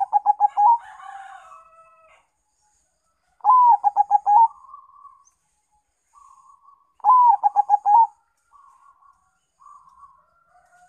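Zebra dove (perkutut), a Bangkok–local crossbreed, cooing: three phrases about three and a half seconds apart, each a rising opening note followed by a quick run of short rolling coos. Fainter coos fill the gaps between phrases.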